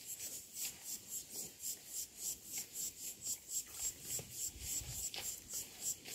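Insect calling in a steady rhythm of short, high-pitched rasps, about four a second.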